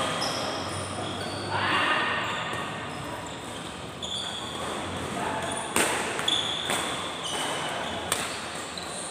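Badminton doubles rally on an indoor court: sharp racket hits on the shuttlecock, the loudest about six seconds in, and short high shoe squeaks on the court floor, echoing in a large hall.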